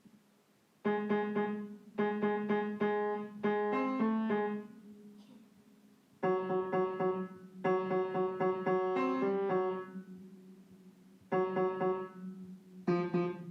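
Piano-like keyboard music: short phrases of repeated notes and chords, broken by brief pauses.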